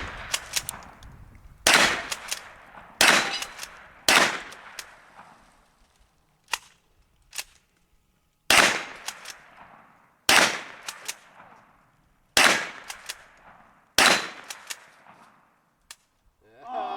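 Seven rifle shots from a .44-40 rifle, fired one to two seconds apart in two strings with a pause of about four seconds between them. Each shot is a sharp crack with a short echoing tail, and two fainter sharp clicks fall in the pause.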